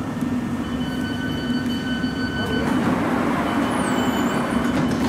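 A London Underground S7 Stock train stands at the platform with its doors open, its equipment giving a steady hum. Steady electronic tones sound for about two seconds, then again in the last second and a half as the door-closing alert, with a few sharp knocks near the end as the doors shut.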